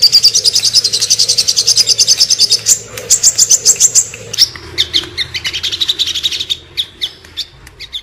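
Olive-backed sunbird (sogon) singing a fast, high-pitched run of short repeated notes, about ten a second. The run breaks briefly about three and four seconds in and grows softer over the last few seconds.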